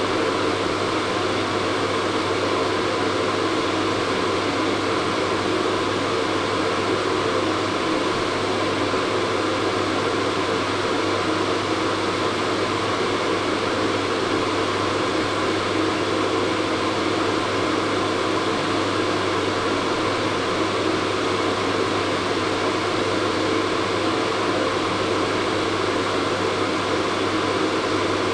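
Hair dryer running steadily: an even rush of blown air over a low motor hum.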